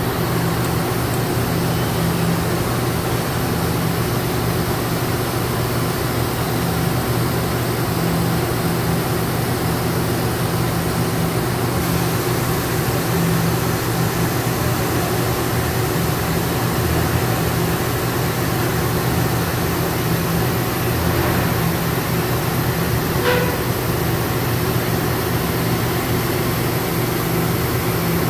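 Steady hum and drone of factory machinery in a robotic production cell, with no change in level. A faint high hiss comes in about twelve seconds in, and there is one short squeak about twenty-three seconds in.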